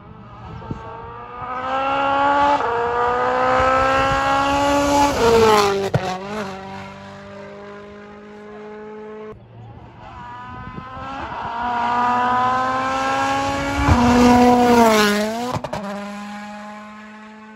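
Two rally cars passing flat out one after the other; the second is an M-Sport Ford Puma Rally1 with a turbocharged four-cylinder. Each engine rises in pitch as it approaches, with one gear change, then drops sharply in pitch as the car goes by, with a few sharp cracks.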